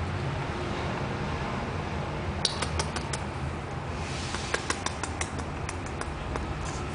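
Small dog crunching pieces of raw carrot, a run of sharp crunches and clicks that comes and goes, over a steady low hum.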